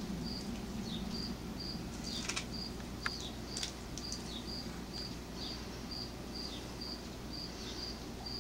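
Crickets chirping steadily, a short high chirp about twice a second. A few soft clicks from a cat biting kernels off a corn cob come in between the chirps.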